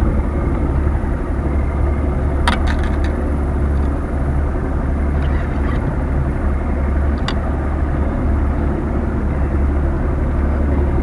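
A vehicle engine running at a steady speed: a low, unbroken drone under a rushing noise, with a couple of sharp clicks.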